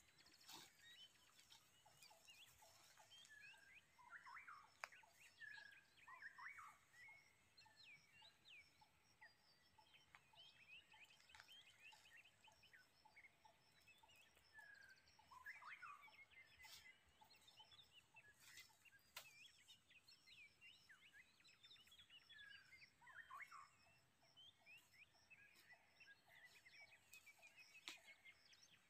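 Faint wild birds calling: many short chirps and sliding whistles, scattered and overlapping.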